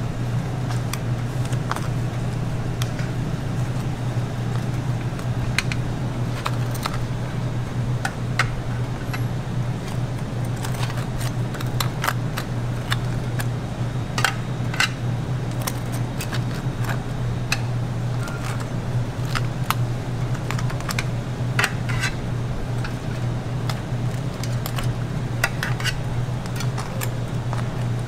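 Metal spatula and knife tapping and scraping on a metal wire cooling rack and waffles: scattered, irregular clicks, over a steady low hum of kitchen machinery.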